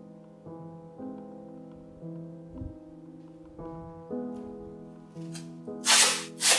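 Soft piano background music with notes changing about every half second. Near the end, two short, loud tearing bursts: tape being pulled off a roll for a tape mod of the keyboard PCB.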